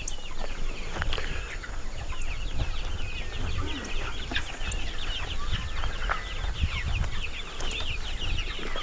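A flock of penned broiler chickens peeping and chirping non-stop: many short, high, falling peeps overlapping, getting denser about halfway through, over a low rumble.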